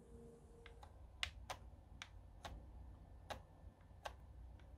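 About nine sharp, irregular plastic clicks from a PS4 controller being handled and its buttons pressed. The last of a faint music tone fades out in the first second.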